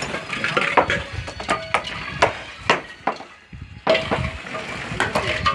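Irregular sharp knocks and clanks of hand tools working wet concrete into rebar column forms, some with a short metallic ring.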